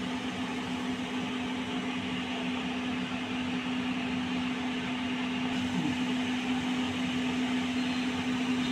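Steady motor hum with one constant low tone over an even hiss.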